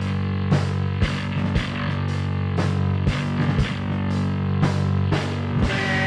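Rock band playing an instrumental passage: guitar and bass chords held over a steady drum beat of about two hits a second, with no singing.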